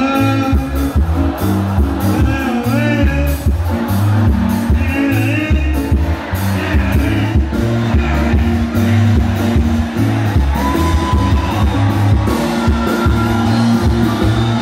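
Live band music: a bass line stepping between low notes under steady drum hits, with a wavering, gliding melody line on top that slides up and down in pitch.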